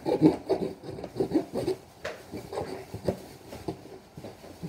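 A butter knife scraping and sawing through a cardboard box and its tape in quick, irregular strokes. The strokes come thick in the first couple of seconds, then sparser.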